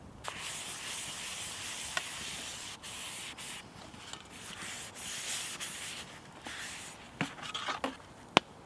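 Scraping and rubbing on a camping plate as it is cleaned by hand, in irregular strokes for several seconds, followed by a few light clinks and one sharp knock near the end.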